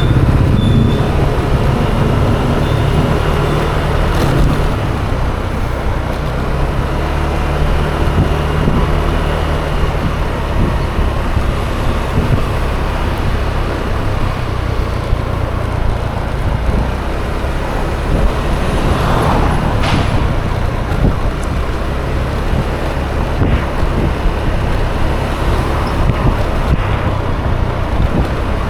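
Ride noise from a Yamaha Aerox 155 scooter moving through city traffic: the engine running and surrounding traffic, under a continuous low rumble. A louder swell of noise comes about two-thirds of the way through.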